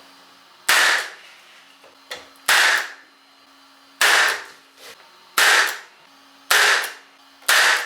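Pins being driven into the freshly glued joints of a wooden bird box: six sharp, loud strikes, one every second or so, each with a short ringing tail.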